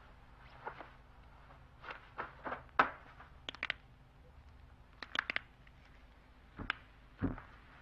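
A series of sharp, dry cracks and snaps, some in quick pairs and clusters, of a fighter cracking his knuckles and joints while warming up, with a few softer rustles of movement over a faint low hum of film soundtrack.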